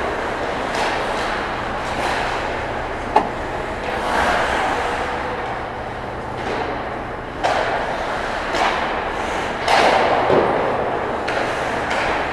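Ice hockey play around the goal: skate blades scraping and carving on the ice and sticks clattering, with one sharp crack of stick or puck about three seconds in and heavier scrapes later on. A low steady hum runs underneath.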